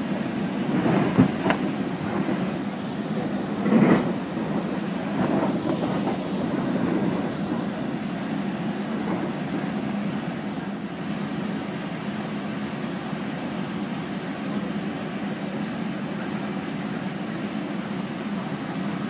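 Metrolink commuter train rolling along the track: a steady rumble with a low hum. A few sharp knocks come about a second in, and a louder clunk about four seconds in.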